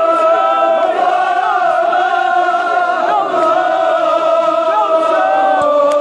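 A large crowd of men chanting a Kashmiri noha (Shia mourning lament) together in unison. Many voices hold a sustained line at a steady, loud level.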